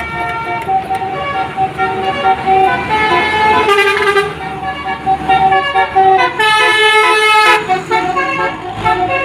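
Basuri telolet musical bus horn playing a tune of short horn notes that jump between pitches, with a louder, fuller chord held for about a second past the middle before the short notes resume.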